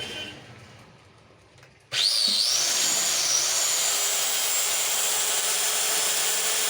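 A 4SB handheld marble cutter's universal motor is switched on about two seconds in. Its high whine rises quickly to full speed and then runs steady, on a newly replaced housing bearing.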